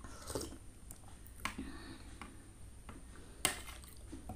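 Close-up eating sounds: quiet mouth noises from spoonfuls of soft kolak in coconut milk, with a few sharp clicks of a metal spoon against a ceramic bowl. The loudest click comes about three and a half seconds in.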